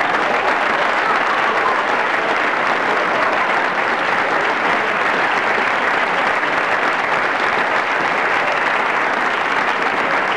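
Large crowd applauding, a dense, steady clatter of clapping at an even level throughout.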